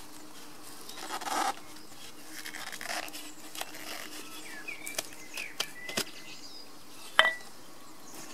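Gloved hands prising the lid off a tin can used for cooking birch tar: some scraping, then a few sharp metal clicks, the loudest about seven seconds in with a brief ring as the lid comes free. A faint steady hum and a few faint bird chirps lie behind.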